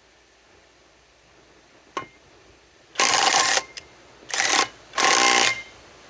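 Kobalt subcompact cordless impact wrench run on a trailer lug nut in three short trigger bursts about a second apart, the last falling in pitch as it winds down. Before them there is a single sharp click.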